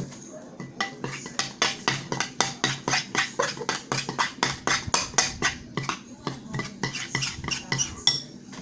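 A spoon clicking against a bowl in quick, even strokes, about three or four a second, while stirring a glue slime mixture.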